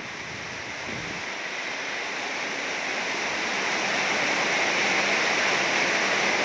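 Heavy rain pouring down with strong wind, a steady rushing hiss that grows louder over the first few seconds.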